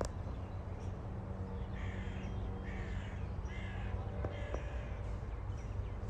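A bird giving a run of about four short, harsh calls in the middle, over a steady low rumble.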